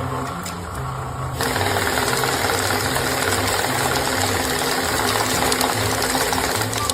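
A motor-driven machine running with a steady rattling clatter, louder from about a second and a half in.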